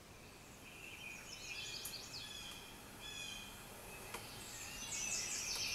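Recorded birdsong and chirping from the opening of a nature-sounds track on the Bose demo CD, played back through the speakers of a Bose Lifestyle 20 music center. It fades in about half a second in and grows louder.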